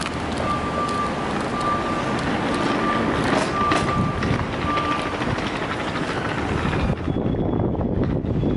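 Steady traffic and wind noise at an airport kerb, with a vehicle's reversing alarm beeping on one pitch about once a second for the first five seconds. About seven seconds in, the hiss thins out.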